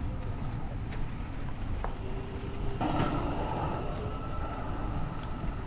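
Steady low rumble of wind and rolling noise from a moving bicycle, with a faint steady tone joining about three seconds in.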